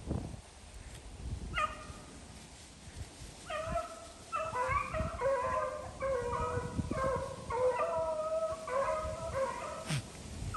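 Beagle hounds baying as they chase a rabbit: one call about one and a half seconds in, then from about three and a half seconds a quick, almost unbroken string of high bawling calls.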